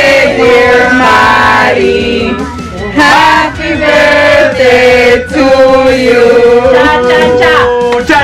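A group of men, women and children singing a birthday song together, ending on one long held note.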